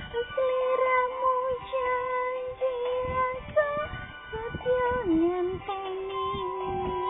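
Music: a song with a voice singing a melody in held notes that slide from one pitch to the next.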